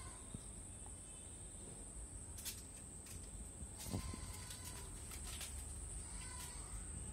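Quiet background with a steady high-pitched whine, a few faint bird-like chirps and occasional light taps.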